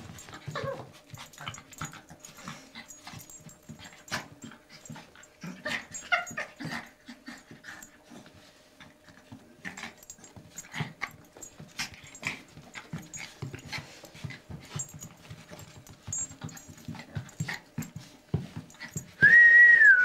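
A small terrier scuffling and snuffling as it plays on a carpet, with a couple of brief whimpers. Near the end a squeaky dog toy gives one loud, high squeak lasting about a second.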